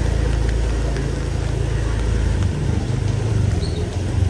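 A motor vehicle's engine running with a low, steady drone that shifts in pitch about halfway through.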